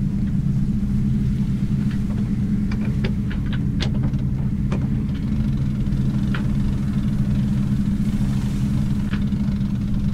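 Sailboat's inboard diesel engine running steadily, with a run of light clicks about three to five seconds in and a couple more later.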